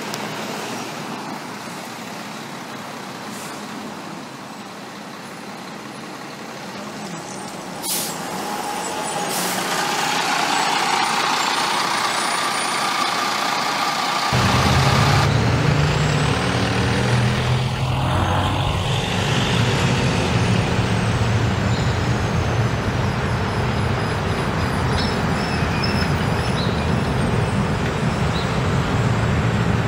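Buses in street traffic: a double-decker sightseeing bus going by with two short air-brake hisses about eight and nine seconds in. Midway it gives way abruptly to the diesel engine of a tour coach running close by, a loud, steady, low rumble.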